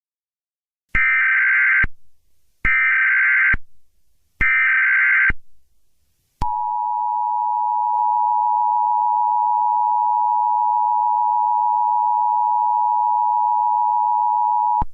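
Emergency Alert System signal: three one-second bursts of SAME header data tones, then from about six seconds in a steady attention tone that holds until near the end. It is the header and alert tone opening the all-clear message.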